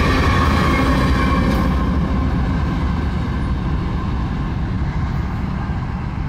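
Union Pacific diesel locomotive of an empty coal train passing at speed, wheels rumbling on the rails. High thin tones fade out about a second and a half in, leaving a low rumble that slowly dies away as the train moves off.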